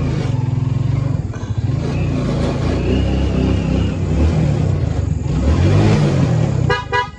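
Motorcycle engine running at low speed. A brief higher-pitched sound comes just before the end.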